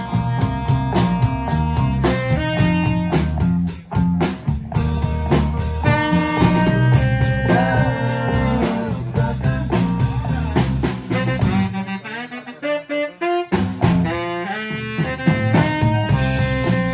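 Live band music with a saxophone playing the lead line over electric guitars and drum kit. About twelve seconds in, the band stops for a moment, leaving a few short hits, then the full band comes back in.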